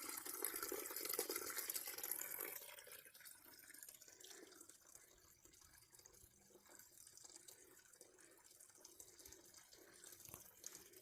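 Small creek trickling and splashing over rocks, louder for the first two or three seconds, then dropping to a faint trickle.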